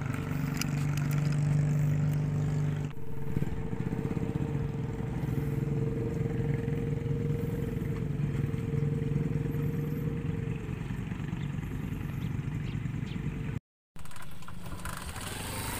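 Motorcycle engine running at a steady, even speed, with no revving. The sound drops out briefly near the end.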